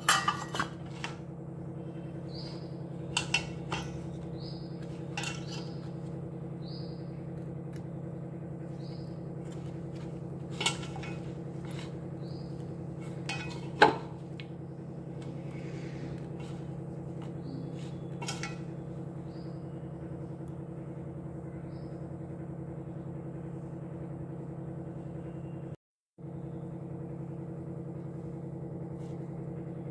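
Scattered knocks and clinks of a stainless steel bowl as dough is kneaded by hand in it, the loudest about fourteen seconds in, over a steady low hum.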